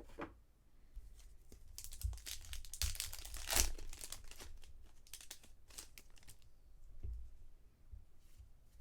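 Foil trading-card pack being torn open and its wrapper crinkled, a dense crackling that peaks about three and a half seconds in and tails off into scattered crinkles, with a few soft knocks near the end.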